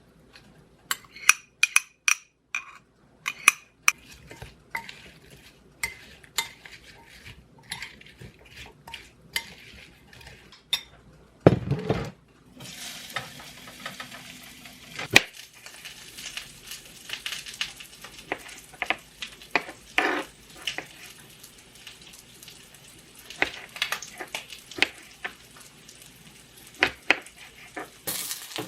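Kitchen cooking sounds: utensils clinking against dishes, then, a little before halfway, food hitting a hot pan and sizzling steadily, with a utensil stirring and clinking against the pan.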